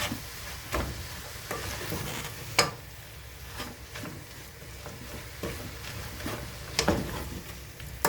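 Spinach and meat sizzling in a cooking pot as they are stirred, with a utensil scraping and knocking against the pot: the loudest knock comes about two and a half seconds in, another near seven seconds.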